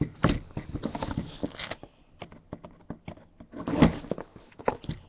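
Trading card box and its packaging being handled and opened by hand: a run of quick clicks, taps and crinkles, with a louder knock nearly four seconds in.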